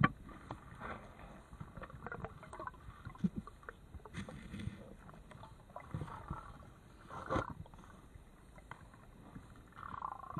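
Underwater sound picked up by a camera in its waterproof housing during a cave dive: scattered clicks and knocks, with a sharp knock at the very start and another about seven seconds in, and a few short rushing swirls of water noise.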